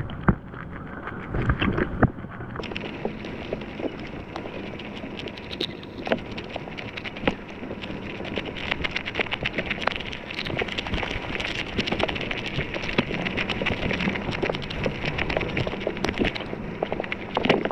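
Muffled underwater noise heard through a submerged action camera, thick with crackling and scattered sharp ticks.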